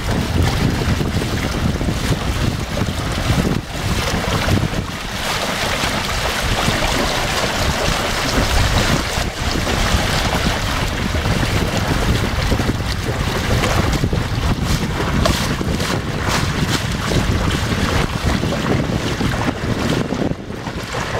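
Wind buffeting the microphone over a steady rush and splash of water along the hull of an inflatable sailing kayak under way. The high hiss of the water thins shortly before the end.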